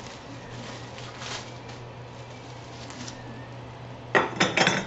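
A steady low hum under faint handling noise, then, about four seconds in, a quick cluster of loud clacks and knocks as the Ender 3's aluminium frame extrusions are picked up and set down on the wooden workbench.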